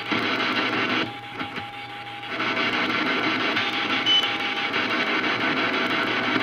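Shortwave receiver's speaker, a National NC-183D tube receiver, hissing and crackling with 40-meter band static. About a second in, a steady CW signal tone comes through for over a second while the static dips. The tone returns more weakly near the middle.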